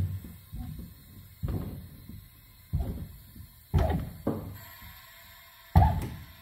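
About five separate clunks and knocks of a bellows-type car jack being handled by its long red handle and set under the car's sill, the last one the loudest. A faint steady tone joins in for the last couple of seconds.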